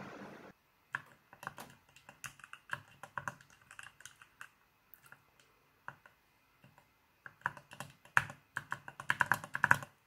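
Keystrokes on a small 23-key mechanical macropad: scattered presses of the key switches, then a quicker flurry of presses over the last few seconds.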